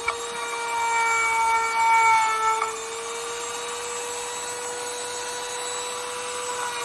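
A small electric power tool's motor running at a steady pitch. It is louder for the first two and a half seconds, then runs on evenly and a little quieter.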